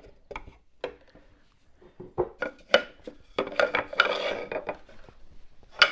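Sharp knocks and metallic clatter on a wooden workbench, a handful of separate hits with a rattling, scraping stretch in the middle and a loud knock near the end: a holdfast being knocked loose and tools and the glued chair being handled.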